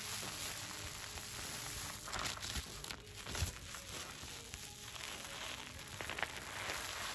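Oxygen bubble mask foam squeezed and worked between the fingers close to the microphone: a steady fine crackling of popping bubbles, with a few louder squishes about two to three seconds in and again near the end.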